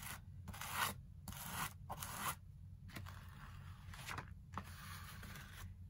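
Flat plastic scraper dragged over a stencil on cardstock, spreading a thick mixed media modeling paste in a series of short scraping strokes. The paste has been sitting out and is starting to dry, so it no longer spreads smoothly.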